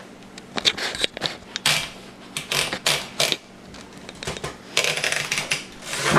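Irregular clicks, clacks and short rustles of portable typewriters and paper being handled and set up, not steady typing.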